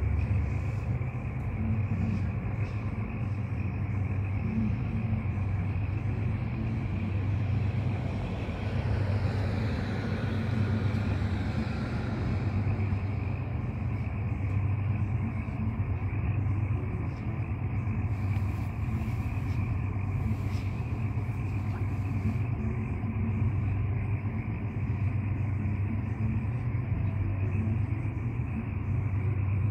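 Diesel locomotive of a freight train running with a steady low rumble, its headlight facing down the track.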